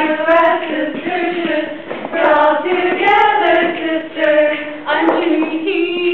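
Female voices singing together, moving through long held notes with no instrument heard.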